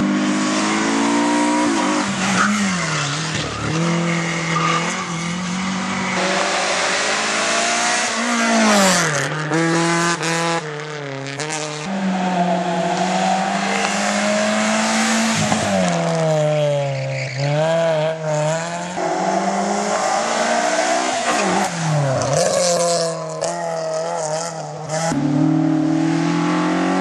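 Hill-climb race car engines revving hard, the pitch climbing and dropping back again and again through gear changes.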